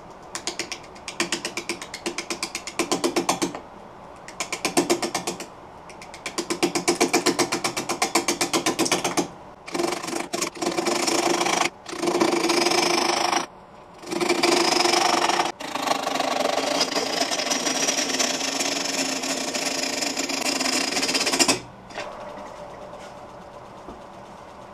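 A turning gouge cutting a spinning Russian olive bowl blank on a wood lathe, in a series of passes a few seconds long with short pauses between them. The early passes come as rapid rhythmic pulses, the later ones as a steadier scraping hiss; about 22 seconds in the cutting stops and only the lathe's faint running is left.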